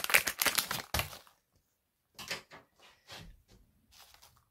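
Foil blind-bag booster pack crinkling and tearing as it is opened by hand: a dense spell of crackling for about a second, then after a short pause a few scattered crinkles.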